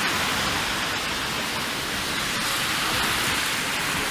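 Steady hiss of freezing rain and sleet coming down on a wet, slushy street, with faint ticks of drops striking.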